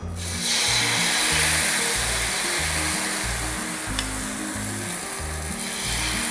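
Thin amboli batter of rice and wheat flour sizzling as it is ladled onto a hot, oiled non-stick tawa. The hiss starts suddenly and slowly eases, and it is strong again near the end as more batter goes on.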